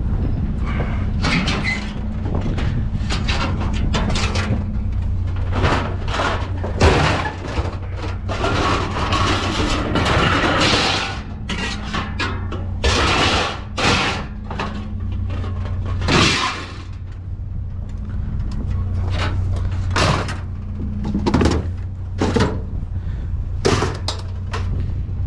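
Repeated clanks, knocks and rattles of scrap and junk being handled and loaded, with noisy scraping and rustling, over a steady low hum.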